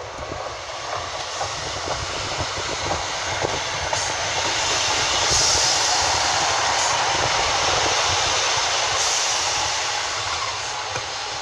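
Class 153 single-car diesel railcar pulling into the platform, its running noise building over several seconds and then slowly easing as it slows, with brief hissy high-pitched patches midway.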